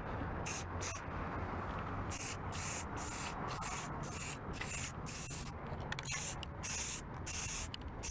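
Krylon aerosol spray can fitted with an improvised nozzle tip, sprayed in a quick series of short hissing bursts starting about half a second in. The tip is blowing mostly air and too little product, which the owner blames for the orange peel in the coat.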